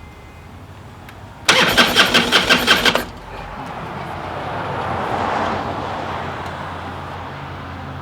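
Harley-Davidson Softail V-twin being cranked by its electric starter for about a second and a half, the cranking pulsing about six times a second, and it does not catch: the fuel pump is not coming on, a fault later traced to a water-damaged relay. A steady hiss follows, swelling and then fading.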